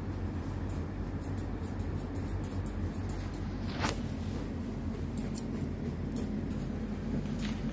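Grooming scissors snipping a cat's fur: scattered light snips, one a little longer about four seconds in, over a steady low room hum.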